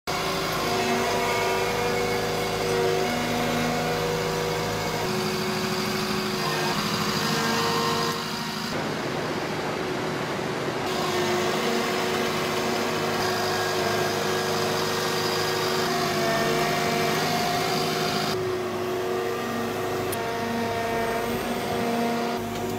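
Walking excavator's diesel engine and hydraulics running under load as the machine lifts and steers itself on its legs and wheels. Several steady whining tones shift in pitch every few seconds.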